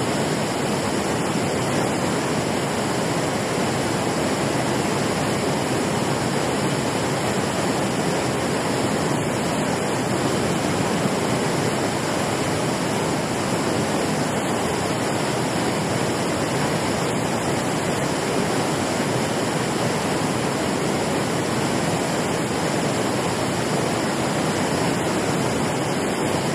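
Water rushing steadily down a concrete weir spillway, a loud, unbroken roar of white water.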